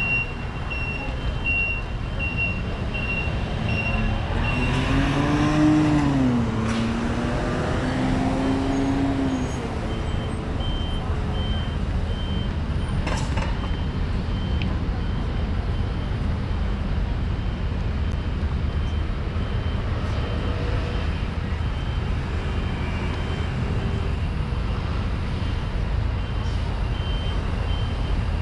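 City street traffic: a steady low rumble of vehicles, with a high electronic beep repeating about twice a second for the first few seconds and again from about eleven seconds in. About five seconds in, a louder pitched sound rises and falls for a few seconds.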